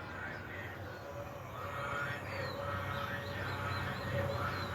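Birds calling outdoors, with short arched calls and, in the second half, a quick run of high repeated chirps, over a steady low hum.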